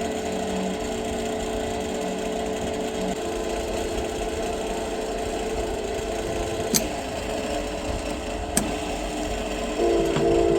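A motor running steadily, with a change in its pitch about three seconds in and again near the end, and two sharp clicks in the second half.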